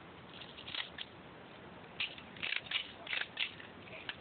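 A scatter of faint short clicks and crackles, in small clusters about half a second in, from two to three and a half seconds, and once more near the end.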